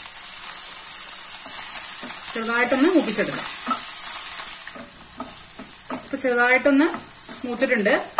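Green chillies and chopped ginger sizzling steadily in hot oil in a nonstick pan, stirred with a wooden spatula scraping through them.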